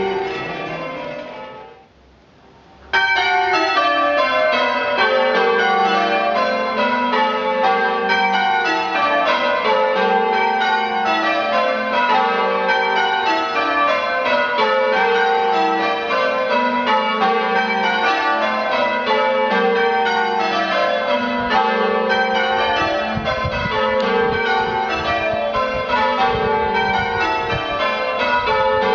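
A Taylor-cast ring of eight church bells being change rung, the strikes coming in rows that step down in pitch from treble to tenor. The ringing fades away in the first two seconds, then comes back in abruptly about three seconds in and runs on without a break.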